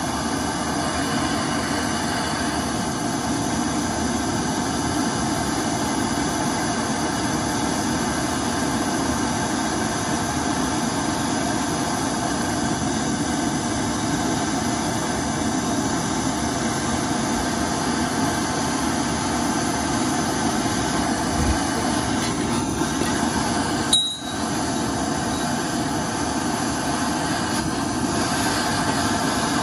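Small handheld gas torch flame burning steadily against the exhaust, heating a seized oxygen sensor to free it. A brief click interrupts the steady sound about 24 seconds in.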